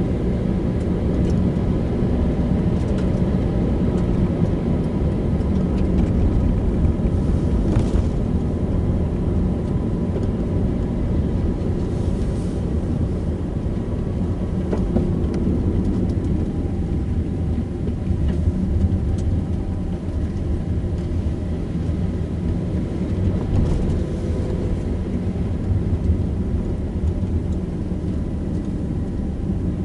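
A car driving along a road: a steady low engine and tyre rumble, with a few faint knocks from the road surface.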